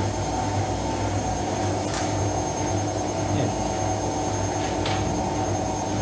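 Bosch Logixx 8 front-loading washing machine on its 800 rpm spin, a steady hum and whir. It runs evenly with no shaking or knocking, a sign that it stands level and firm on its adjusted feet.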